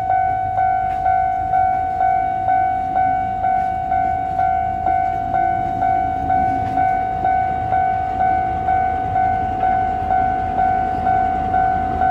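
Railway level-crossing warning bell ringing steadily, about two strokes a second, over the low rumble of a slowly passing train.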